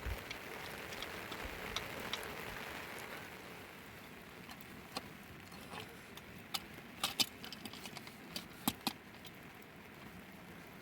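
Steady rain falling, heavier in the first few seconds and easing off, with scattered sharp taps of drips in the second half.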